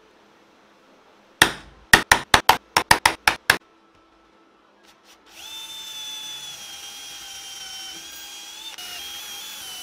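A quick run of about nine sharp knocks, then a cordless drill runs steadily as it bores into a wooden board, its whine drifting slightly lower.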